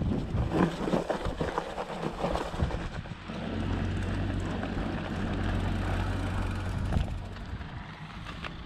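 Rustling and knocking for the first few seconds. Then the wide knobby tyres of a fat bike roll over a dirt track with a steady low hum for about four seconds, dropping away near the end.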